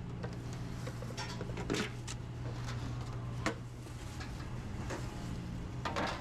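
Restaurant kitchen background: a steady low hum of equipment, with scattered knocks and clatter from work going on. The sharpest knocks come about three and a half seconds in and near the end.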